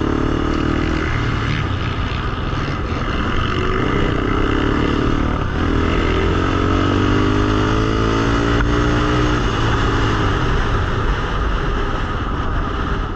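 Sport quad (ATV) engines running: one is revved up and down several times over a steady low engine drone.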